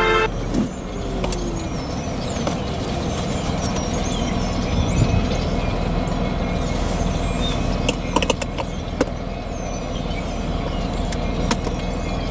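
Outdoor trackside ambience: a steady low rumble with a faint hum, small birds chirping over it, and a few sharp clicks about eight and nine seconds in.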